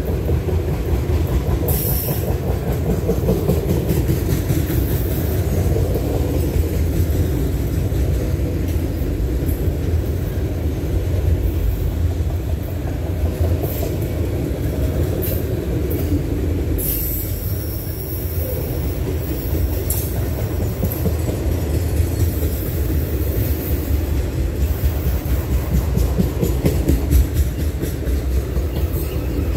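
Autorack freight cars rolling past: a steady rumble of steel wheels on the rails, with short high-pitched sounds now and then.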